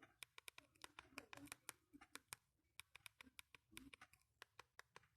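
Faint, quick, irregular clicking, several clicks a second, of buttons being pressed on a Fly FF179 mobile phone's keypad.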